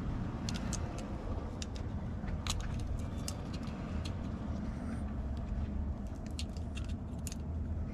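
Scattered small sharp clicks of metal lock parts being handled and worked at, as a lever-handle lock cylinder's cap is tried for removal, over a steady low rumble.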